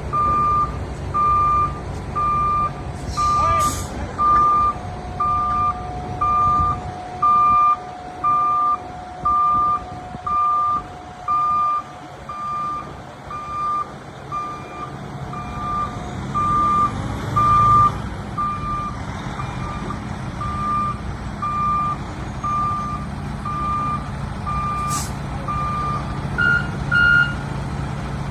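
Truck backup alarm beeping evenly about once a second over a steady low engine rumble, with a different, higher double beep near the end.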